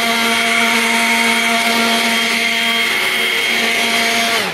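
Handheld electric leaf blower running flat out with a steady whine over a rush of air. It is switched off near the end, and its pitch drops as the motor spins down.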